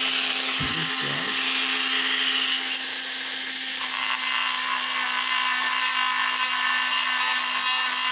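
Small handheld rotary tool running steadily at high speed with a grinding wheel, grinding down a part; a continuous high whine whose tone changes about four seconds in as the wheel bites differently.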